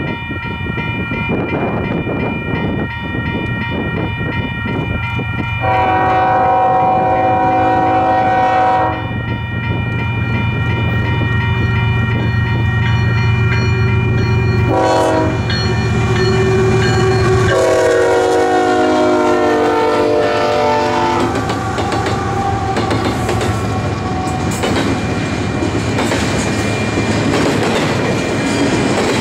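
Union Pacific intermodal train led by a GE C45ACCTE (ES44AC) locomotive sounding its air horn: a long blast about six seconds in, a short one near the middle, and another long one, over the steady rumble of the approaching diesels. The locomotives then pass, and double-stack container cars roll by with a clickety-clack of wheels over the rail joints.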